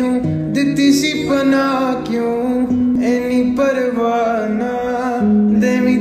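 Background music: a song soundtrack with guitar.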